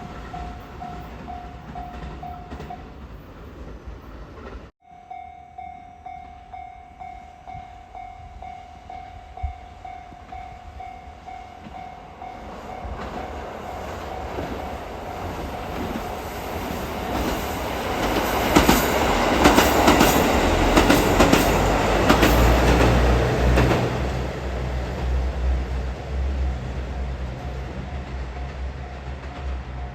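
A Japanese level-crossing alarm rings steadily in pulses, breaking off and starting again about five seconds in. A KiHa 85 diesel limited express then approaches and passes, loudest around the middle, with rail clatter and a low diesel engine hum as it runs by.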